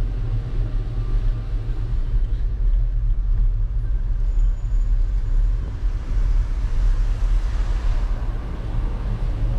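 Steady low wind rumble on a bike-mounted GoPro microphone while riding, with tyre and road noise under it. A broader hiss swells briefly about eight seconds in.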